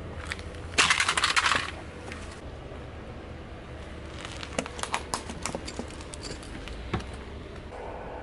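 A plastic toy truck crushed under a car tyre with one loud crunch about a second in, then a string of sharp plastic cracks as the tyre rolls over a row of disposable lighters, over a low steady rumble.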